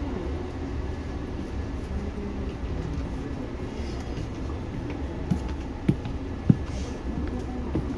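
Inside a Seibu 2000 series electric train car: a steady low rumble with faint steady hum tones, broken by three short sharp knocks a little after halfway, the last the loudest.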